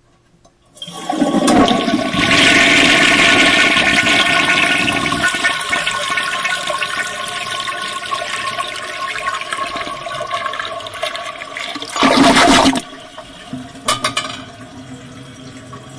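Toilet flushing: water rushes in loudly about a second in and slowly eases off. A short loud surge comes near twelve seconds, then a couple of sharp clicks and a quieter steady flow of water.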